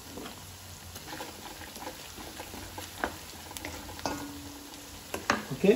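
Onions and green chillies with turmeric sizzling in oil in a metal kadai, a steady crackle with scattered small pops. A wooden spatula stirs them, with a few louder knocks near the end.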